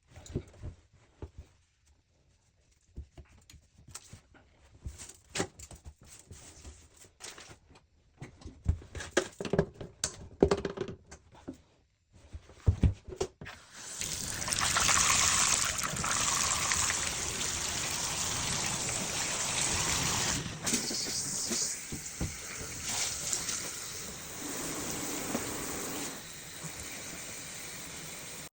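Scattered clicks and knocks for about the first half, then water starts running from a tap about halfway through and flows steadily, with slight changes in its spray.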